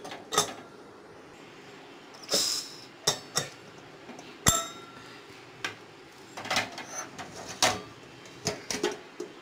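A stainless steel pressure cooker being opened after the pressure has dropped: the weight valve is lifted off and the lid handles are worked, giving scattered metal clicks and knocks. There is a brief hiss a little over two seconds in, and one sharp knock about halfway through with a short ring after it.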